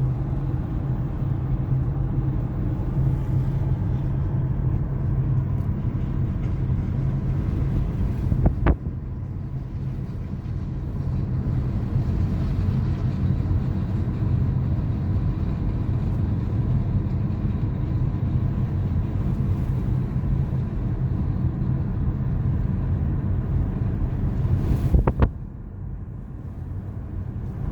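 A diesel engine running steadily with a low rumble. Two sharp clicks cut in, one about nine seconds in and one near the end, each followed by a drop in level.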